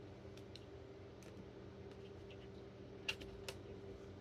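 A few faint plastic clicks and taps from a drone's remote controller being handled, the loudest pair about three seconds in, over a faint steady hum.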